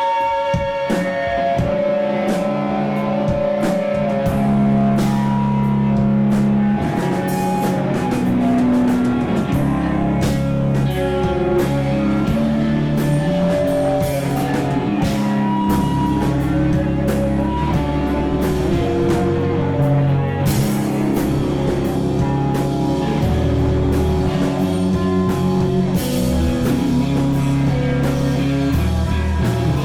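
A rock band playing live: electric guitar and bass notes over a drum kit's steady beat, with no singing.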